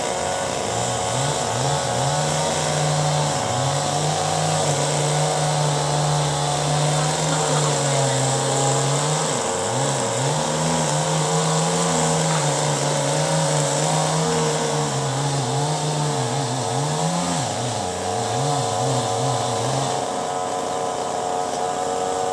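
Two-stroke chainsaw running at high revs as it cuts wood, its engine note wavering and sagging under load. The high-revving note falls away near the end.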